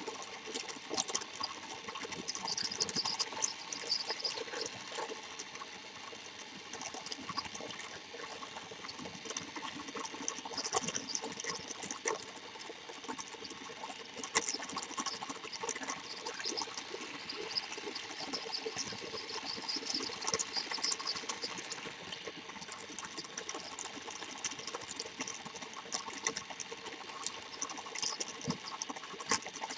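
Plastic Thomas toy train running along plastic track, its small motor whirring steadily under a constant rattle of irregular clicks from the wheels and track.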